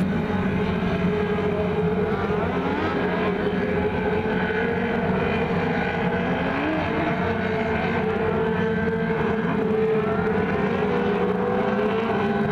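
Engines of several mini sprint race cars running together as a pack, their pitch rising and falling as they lap the track.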